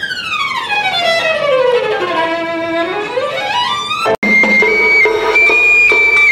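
Violin playing a long, slow glissando, sliding down more than two octaves and partway back up. About four seconds in it cuts off abruptly into other music with held high notes.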